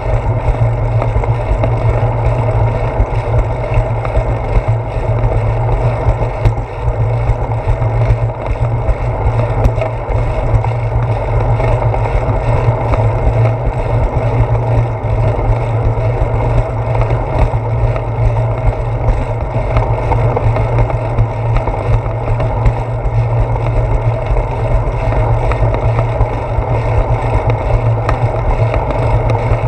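Steady low rumble of wind buffeting and road vibration picked up by a handlebar-mounted GoPro Hero 4 as a bicycle rolls along a concrete path.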